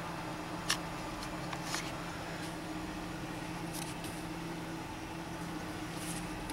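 Ford Taurus 3.0L V6 running at a steady idle, heard from inside the cabin as an even hum, with a few light clicks, while the steering wheel is turned to bleed air from the power steering system.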